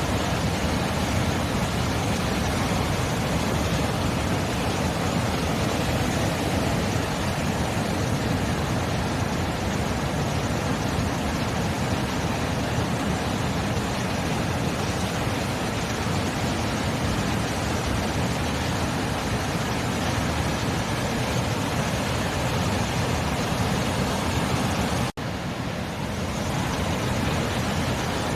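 Sea surf as a steady, unbroken rush of noise, with no separate wave breaks standing out. Near the end it drops out for a moment and then comes back.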